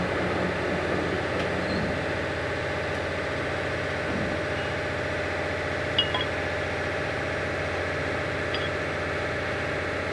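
Metal lathe running with a steady machine hum, and a light metallic click about six seconds in.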